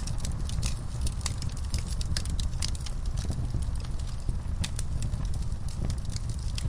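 Wood fire in a fireplace crackling, with many irregular sharp pops, several a second, over a steady low rumble of the flames.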